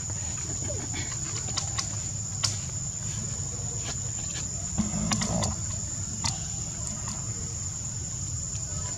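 Insects shrilling outdoors: one steady high-pitched drone that never lets up. Scattered faint clicks and a low steady rumble lie underneath it.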